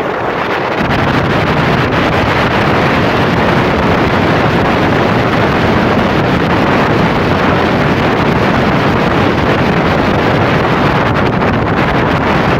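Motorboat under way at speed, with heavy wind buffeting the microphone over the rush of the engine and water. A steady, dense noise that grows louder and fuller in the low end about a second in.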